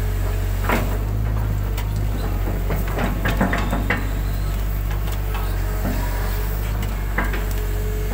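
Hitachi hydraulic excavator's diesel engine running steadily, heard from the cab, with scattered clunks and knocks as the bucket works the mud along the ditch bank.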